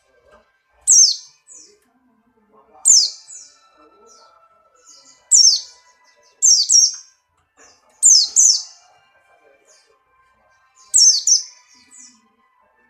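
White-eye (pleci Buxtoni) singing in short, high-pitched bursts, about six in all, each a rapid run of downward-sweeping chirps, with gaps of one to three seconds between them. These are the loud 'nembak' song bursts of a bird in breeding condition (birahi).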